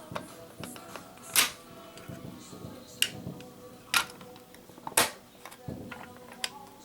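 A series of sharp clicks and knocks, the loudest about one and a half seconds in and three more a second apart near the middle, over faint background music.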